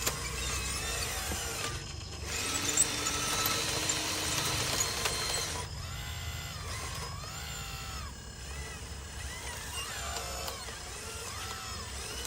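Small electric motors and gearboxes of radio-controlled construction models whining, their pitch rising and falling in repeated sweeps as they speed up and slow down, with a rougher grinding noise for a few seconds early in the stretch.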